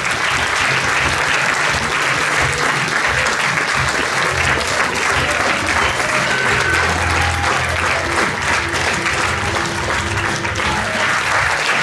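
An audience applauding continuously, with background music playing underneath.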